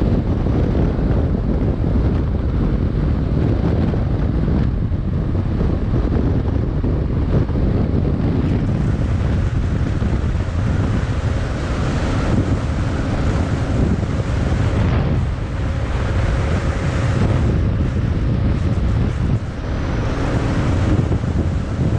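Wind buffeting the microphone of a Kawasaki KLR 650 motorcycle at road speed, with the bike's single-cylinder engine running steadily underneath.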